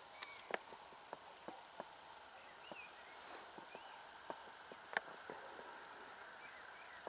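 Faint open-field ambience: a low steady hiss broken by irregular sharp clicks, the loudest about half a second and five seconds in, with a few short rising-and-falling chirps in the middle.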